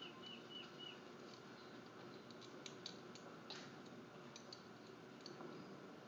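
Near quiet with faint, scattered light clicks and ticks. Near the start there are three or four short, high chirps that fall in pitch.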